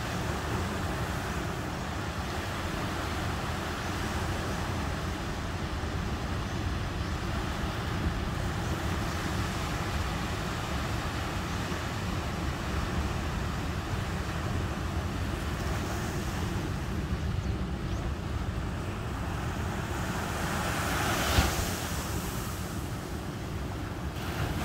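Ocean surf breaking and washing up a sandy beach, a steady rushing wash with wind rumbling on the microphone. Near the end the wash swells louder, with one brief sharp peak.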